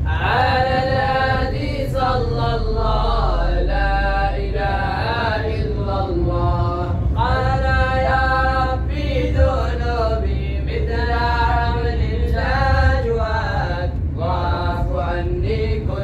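Voices chanting an Islamic nasheed without instruments, in long, wavering held notes over a steady low rumble.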